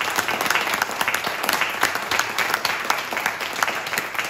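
A small group of people applauding: dense, steady hand clapping.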